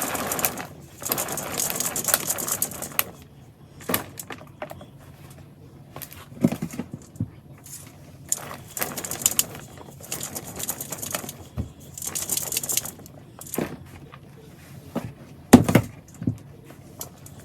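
Damp worm-bin bedding and castings being scooped and shaken by hand, rustling and scraping in several bursts with scattered sharp clicks.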